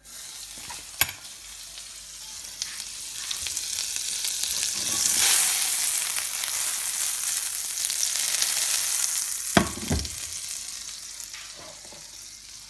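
Pancake batter sizzling in a hot frying pan, a steady frying hiss that swells over the first few seconds and then slowly eases off. A sharp click comes about a second in and a knock near the end.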